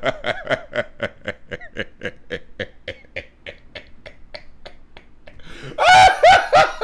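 A man laughing hard: a long run of rapid, breathy 'ha' pulses, several a second, that slowly weaken, then a louder burst of laughter near the end.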